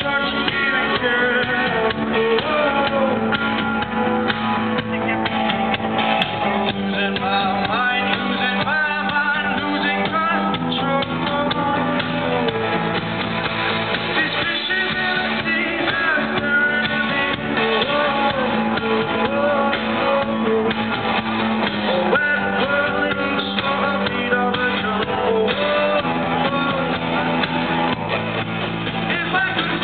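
Indie rock band playing live, with guitars and a singer carrying the melody, in a dull, low-fidelity recording.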